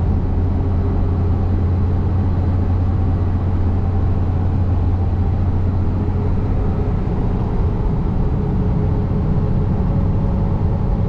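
Steady engine drone and road noise inside a pickup truck's cab at highway speed, with the truck towing a heavily loaded trailer. A constant low hum runs without change.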